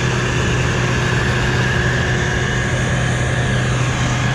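Steady drone of a tractor engine running under load, heard inside the cab, with an even hum.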